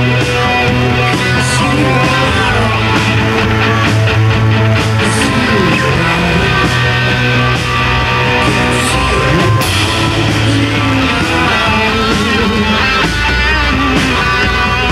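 Psychedelic rock music: layered guitars and drums over long held low bass notes, with wavering, gliding lines in the upper parts.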